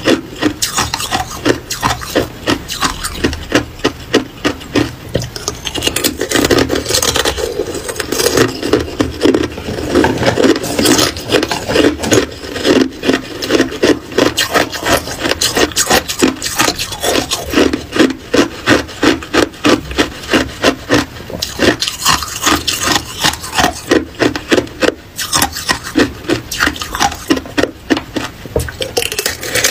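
Hard ice being bitten and chewed: a dense run of crisp crunches, several a second.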